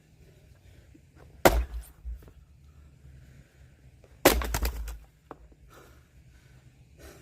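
Firewood being split with an axe: two hard strikes about three seconds apart, each followed by a short clatter of smaller knocks.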